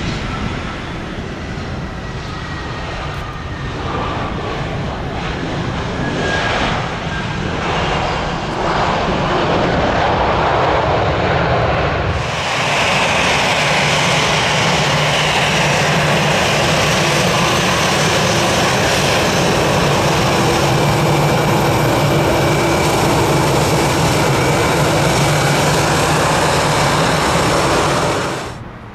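Airbus A320 jet engines on landing: a noisy rush that swells through the landing roll. About 12 s in it switches abruptly to the steady whine of the engines at taxi power, with several held tones. That whine cuts off just before the end.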